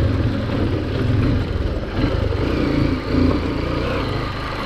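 Honda XR150L's single-cylinder four-stroke engine running as the motorcycle rides up a rough, rocky dirt track. The revs rise and drop several times with the throttle.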